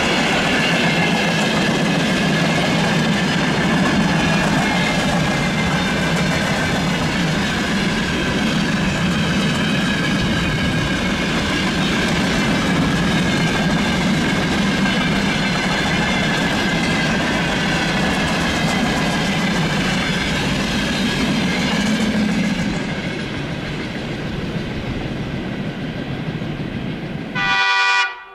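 Freight train wagons rolling past, their wheels clattering steadily over the rail joints, dying away after about twenty-two seconds. Near the end comes a short blast of a diesel locomotive horn.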